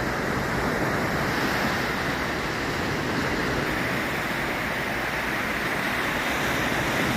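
Mediterranean Sea surf washing on the beach, a steady rush of waves.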